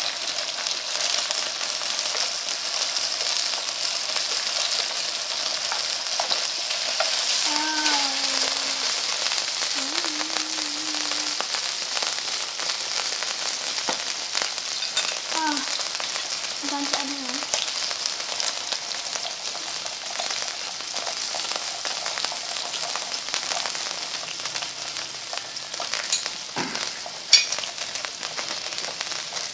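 Beef slices, potato and green onion sizzling steadily in oil on a round nonstick grill pan, with one sharp click near the end as a fork reaches the meat.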